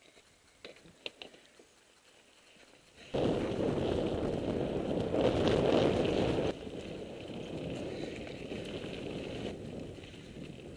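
Mountain bike riding over a dirt track: a rushing noise of tyres and wind on the helmet camera's microphone starts abruptly about three seconds in. It is loudest for a few seconds, then eases to a lower steady rush. Before it there are a few light clicks.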